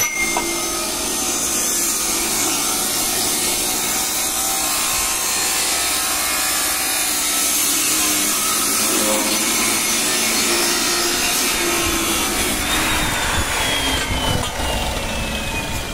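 Abrasive cut-off saw cutting galvanized iron pipe: a steady grinding hiss. Over the last few seconds a thin whine falls steadily in pitch.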